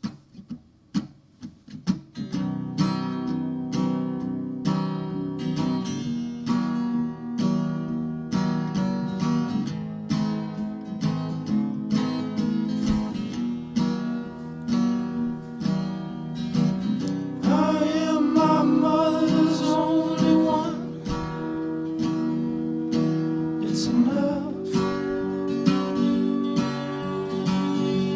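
Acoustic guitar music: a few picked notes, then steady strumming, with a voice singing a short phrase a little past the middle.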